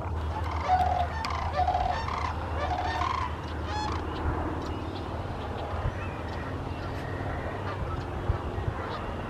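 Sandhill cranes calling: several rolling, trilled bugling calls in the first few seconds, then fainter, over a steady low rumble.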